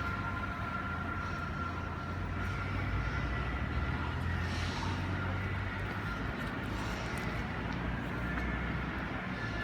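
City street ambience with a motor vehicle's engine running steadily close by: a low hum that swells about midway, with a faint steady whine above it.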